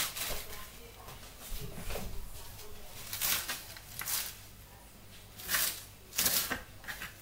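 Kitchen knife cutting lettuce leaves on a cutting board: about half a dozen short crunches, roughly a second apart.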